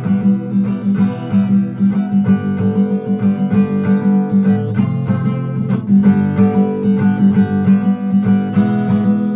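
Acoustic guitar strummed in a steady rhythm, an instrumental passage between sung lines.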